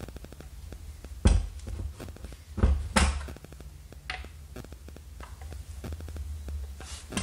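Handling noise from a Milwaukee M18 FUEL cordless angle grinder that is not running: a handful of sharp plastic clicks and knocks as it is turned in the hand and its paddle switch and lock-off lever are pressed, over a low steady hum.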